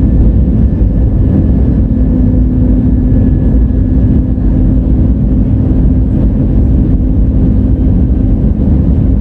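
Airbus A320 cabin noise: a loud, steady rumble of the engines and airflow with a constant hum, unchanging throughout.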